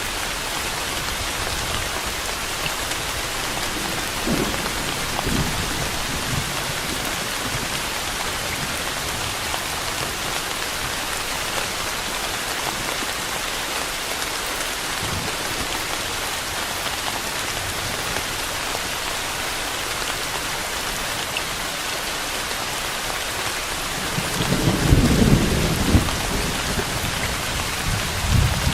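Steady rain falling, with low rolls of thunder a few seconds in and a louder roll of thunder near the end.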